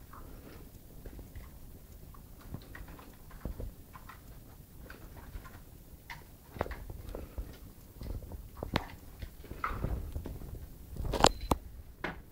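A beagle busy with a treat: irregular small clicks, soft knocks and chewing sounds. They grow busier about halfway through, with a sharper cluster of knocks near the end.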